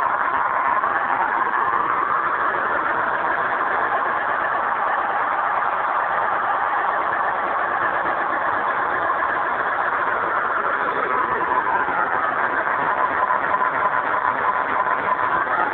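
Electronic RC sound generator imitating an eight-cylinder diesel engine, running continuously, its pitch following the throttle: it falls a little after about ten seconds and rises again near the end.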